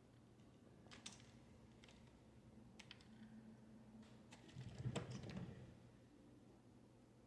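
Faint scattered clicks and taps, denser with a low thump about five seconds in.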